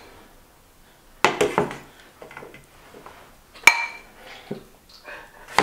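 Metal serving utensil clinking and scraping against white ceramic bowls and a pan as food is dished out: three sharp clinks, the loudest about midway, with softer scraping between.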